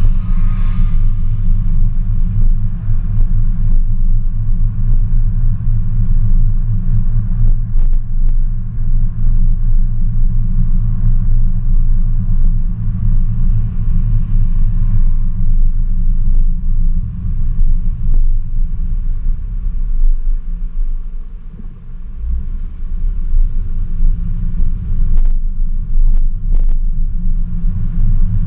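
Car driving slowly along a town street: a steady low rumble, which eases briefly about three quarters of the way through and then picks up again.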